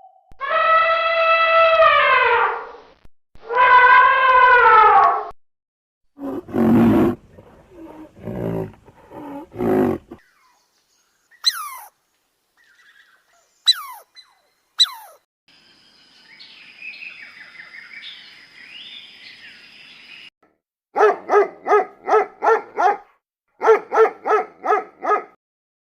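A run of different animal calls one after another: two long pitched calls, then several low roars, three short falling whistles, and near the end two quick series of pulsed calls.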